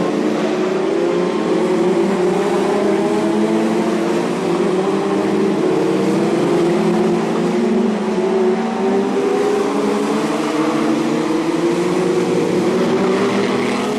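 A pack of BriSCA F2 stock cars racing, several engines running hard together at high revs, their pitch rising and falling as they accelerate and pass.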